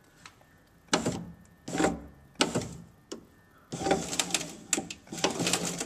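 BMW E46 3 Series power window motor straining against a failed window regulator, crunching and clicking in three short bursts and then in a denser run of about two seconds near the end. The crunching sounds absolutely horrible and is the sign of a broken regulator, most likely a bound cable.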